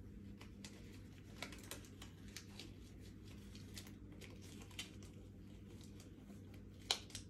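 Sterile surgical gloves being pulled onto the hands: a scatter of small rustling clicks and crackles as the gloves are stretched and worked on, with one sharper click near the end. A faint steady hum runs underneath.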